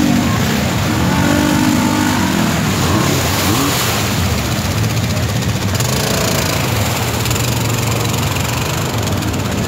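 ATV engine running under load as quad bikes wade through a river, with water churning and splashing around the machines.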